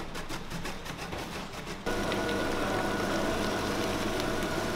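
Rapid, even chopping of parsley and tomatoes with a large curved mincing knife on a cutting board. About two seconds in it gives way to an electric meat grinder running steadily, with a low hum and a whine.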